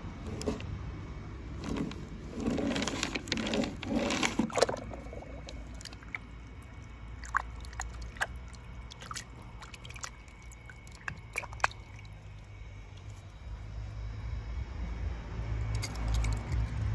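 Water splashing and sloshing in a plastic tub as small paint-covered die-cast toy cars are rinsed, followed by scattered drips and light clicks.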